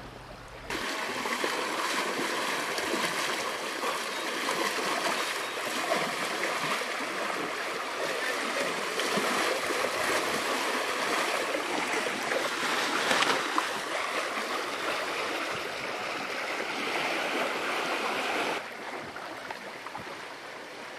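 Water rushing and splashing along the hull of a sailing yacht under way: a steady hiss of spray and wash. It drops to a quieter wash near the end.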